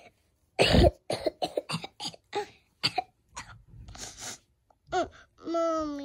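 A child's put-on coughing, a run of short coughs acted out to feign being sick, followed near the end by a longer moaning voice that slides down in pitch.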